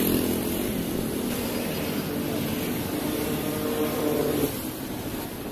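Street traffic: a steady hum of motorbikes and cars passing on a city road, dropping a little in level about four and a half seconds in.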